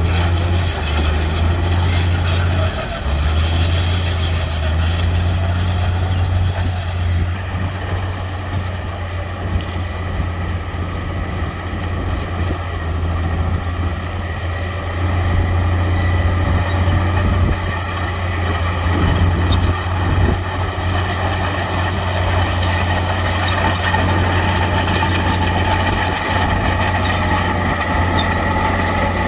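Heavy diesel earthmoving machinery running steadily: a deep continuous engine drone with a higher whine over it that grows clearer in the last few seconds.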